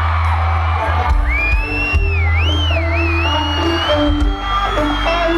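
Live country band playing loudly through a concert PA, heavy bass, heard from within the crowd. About a second in, someone in the audience lets out a long high-pitched squeal that wavers and then holds over the music.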